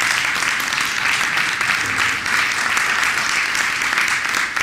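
Audience applauding, a dense, steady clapping from many people.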